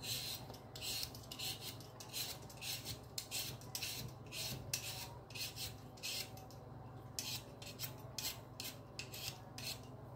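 Peeler blade scraping the skin off a raw potato in quick strokes, about two to three a second, with a short pause about six seconds in.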